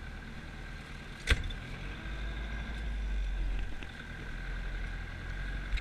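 Zetor tractor engine running, heard from inside the cab. One sharp knock comes about a second in, and the deep engine rumble swells for a couple of seconds in the middle.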